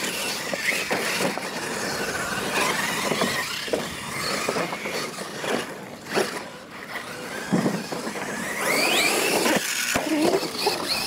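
Electric Losi LMT radio-controlled monster trucks racing on dirt: the high whine of their brushless motors and geartrains rising and falling with the throttle over tyres scrabbling on loose dirt. Several sharp knocks come from the trucks landing and tumbling.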